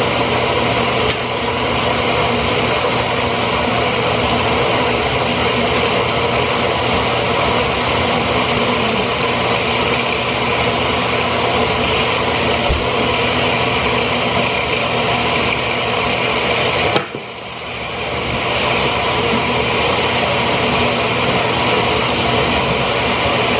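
Personal blender running steadily, its motor blending a smoothie of kale and frozen mango; about 17 seconds in the sound dips sharply and builds back up within a second or so.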